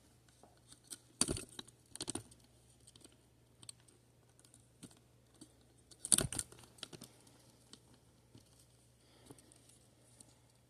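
Backpack and gear being handled: scattered fabric rustles and small clicks, with two sharper knocks, about a second in and again about six seconds in.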